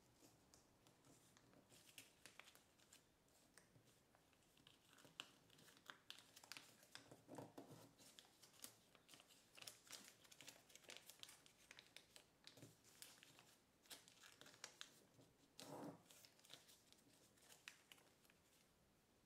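Faint crinkling and crackling of kraft paper being folded and creased by hand: a steady run of small crackles, with a couple of fuller rustles.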